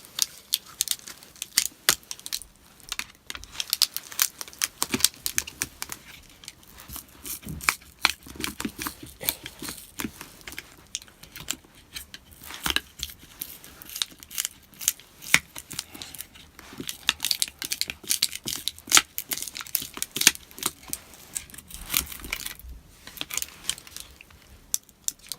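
A MacBook Pro's glued-in battery cell being pried up from its adhesive. The glue gives way in irregular crackles, tearing sounds and sharp clicks.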